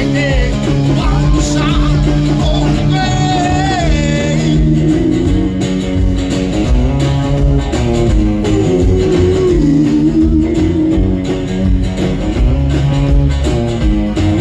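Rockabilly band playing live: electric guitar over a rhythm section with a steady beat.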